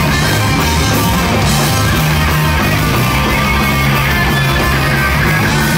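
A live rock band playing loud, distorted electric guitars over drums, steady and unbroken.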